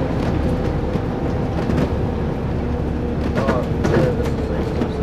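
Cabin noise of a moving Scania OmniCity single-deck bus: steady engine and road noise with a steady whine running under it, and a few light clicks.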